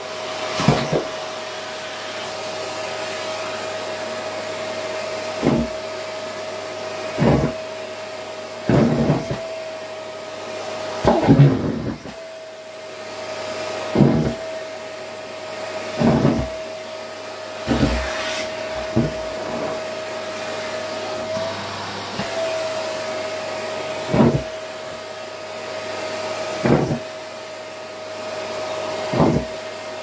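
Bagged canister vacuum cleaner running with a steady high whine as its bare metal wand sucks up scraps of denim fabric from a ceramic plate. Repeated knocks and clatters come every couple of seconds as the wand works over the plate and pieces are pulled in.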